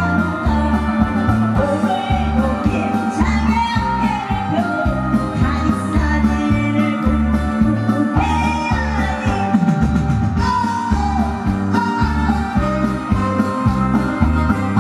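Woman singing into a microphone over an instrumental accompaniment with a steady bass beat, amplified through a PA.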